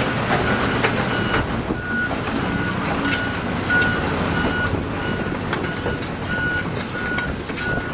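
Volvo EC210C hydraulic excavator travelling: its travel alarm beeps steadily about twice a second over the running diesel engine, with irregular clanks from the steel tracks.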